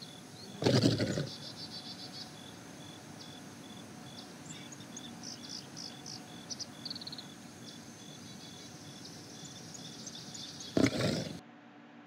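Faint background chirping of insects and birds: a steady high chirr with repeated rapid pulsed trills and short chirps over it. Two short, louder sounds break in, about a second in and near the end, and the chirping background cuts off abruptly just before the end.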